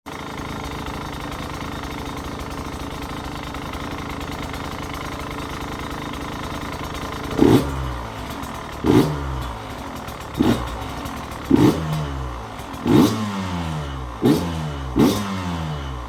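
KTM EXC 150 two-stroke dirt-bike engine, breathing through an HGS header pipe and the stock silencer, idles steadily. About seven and a half seconds in it is revved in short throttle blips, six or seven of them, each a quick rise and fall in pitch, about one every one and a half seconds.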